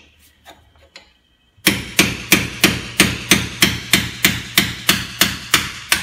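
A hammer striking a punch held against the leftover hub-bearing housing seized in a front steering knuckle: a steady run of about fourteen sharp metal blows, about three a second, starting a couple of seconds in. The blows knock the stuck housing crooked in its bore so it can be pried out.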